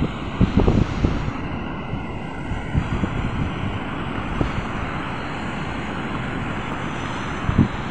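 Wind buffeting the microphone over the steady rush of rough surf breaking on the shore, gusting hardest in the first second or so, with one brief low thump near the end.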